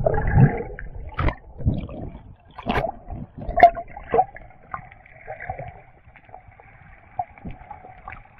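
Underwater sound as the camera goes beneath the sea surface: a splash at the start, then muffled bubbling with scattered knocks and pops. A faint steady hum sets in about three and a half seconds in and stays.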